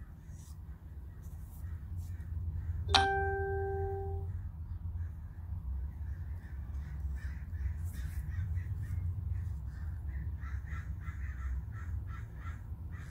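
Crows cawing in repeated short calls over a steady low hum, with a single ringing ding about three seconds in.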